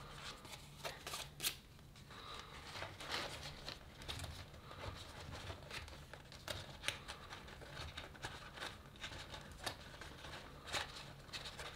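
Thin vinyl of a deflated inflatable toy rustling and crinkling under the fingers as a new inflation valve is worked into its hole, with faint, irregular small ticks.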